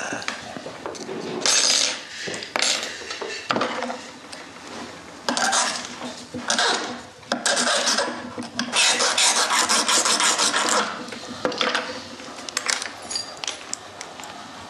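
A small metal file scraping a steel accordion reed tongue to tune it, in short bursts of rapid strokes with a longer run of about two seconds past the middle.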